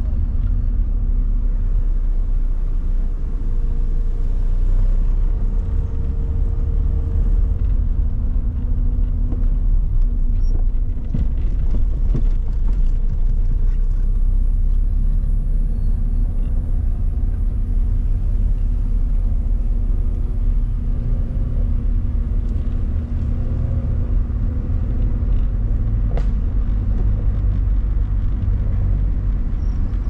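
Car driving along a town road, heard from inside the cabin: a steady low rumble of tyres and engine.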